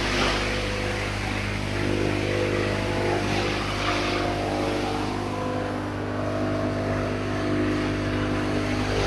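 Corn and grass chopper machine running steadily with a constant motor hum.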